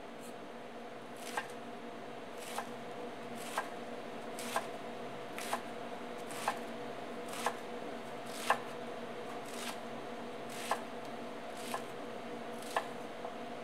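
Chef's knife slicing through rolled radicchio and lettuce leaves and striking an end-grain wooden cutting board, about a dozen slow, even cuts roughly one a second, starting about a second in. A steady hum runs underneath.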